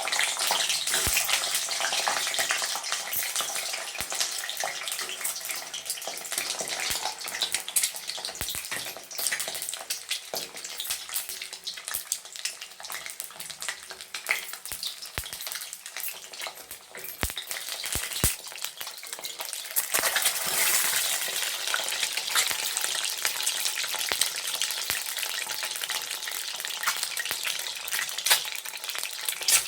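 Peeled boiled eggs sizzling and crackling as they fry in hot oil in a kadhai, with scattered sharp clicks of the eggs being stirred and turned.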